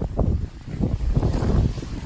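Wind buffeting the microphone of a handheld camera carried at walking pace: an uneven, gusting rumble that dips briefly about a quarter of the way in.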